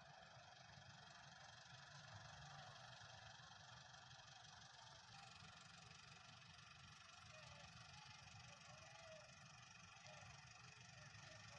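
Near silence: faint, steady outdoor background hiss with a low rumble.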